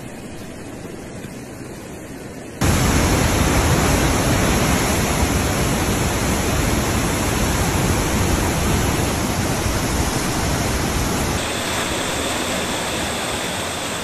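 Floodwater rushing in a muddy torrent: a quieter water noise that turns suddenly into a loud, steady rush about two and a half seconds in, easing to a softer rush about three seconds before the end.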